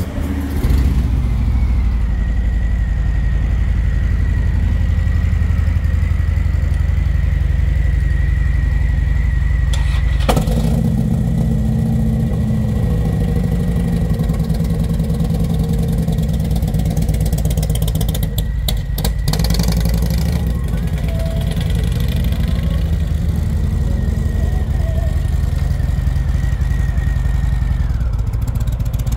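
Air-cooled Harley-Davidson V-twin of a stretched touring bagger running loud and deep, coming up about half a second in; its note changes sharply about ten seconds in as the bike is ridden off, then keeps running steadily.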